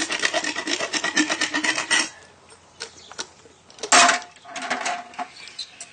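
Equine dental rasp (float) filing a horse's back molars with rapid scraping strokes, the final polish that smooths the sharp edges; it stops about two seconds in. A few scattered knocks follow, with a louder clank near four seconds.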